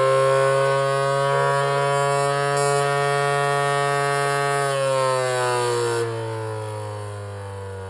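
Baseball pitching machine's spinning motor running with a siren-like wail, sounding like a tornado siren. The pitch holds steady, then slides down from about five seconds in.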